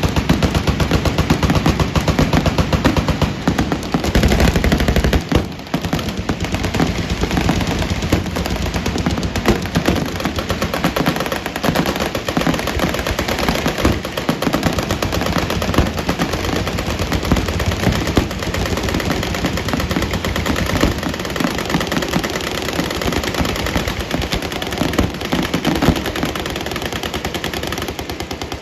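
Machine guns firing on full auto: rapid, overlapping bursts that blend into a near-continuous rattle, with a short lull about five seconds in.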